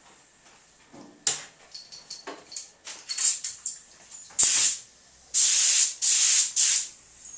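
Paint spray gun laying a second coat of paint, hissing in a series of short bursts that grow longer and louder towards the end.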